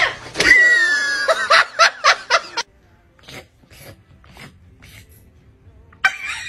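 A person laughing in quick bursts for the first couple of seconds, followed by a quiet stretch with a few faint clicks, and a voice again near the end.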